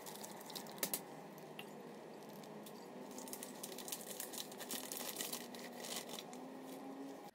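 Plastic pouch crinkling as it is handled and tipped to slide the kombucha SCOBY into the jar, a faint run of short crackles.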